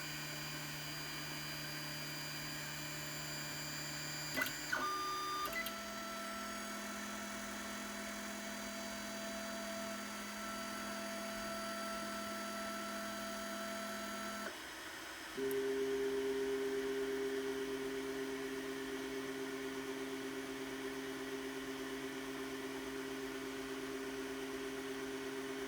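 3D printer's stepper motors whining during a slow print move, each a steady tone held for several seconds. The pitch jumps to a new note whenever the head changes speed or direction: a couple of times around five seconds in, and again a few seconds later, when it turns louder. Light clicks sound with the first change.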